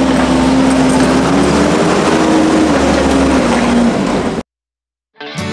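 An engine running loud and steady, its pitch drifting up and down a little; it cuts off suddenly about four and a half seconds in. Acoustic guitar music starts just before the end.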